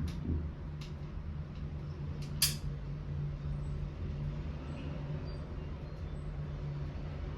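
A steady low mechanical hum, with a few light clicks and one sharp click or tap about two and a half seconds in.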